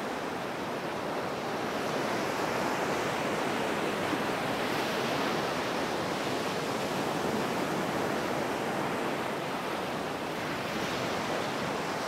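Small sea waves running up onto the shore: a continuous wash of surf, with the hiss of breaking water swelling about five seconds in and again near the end.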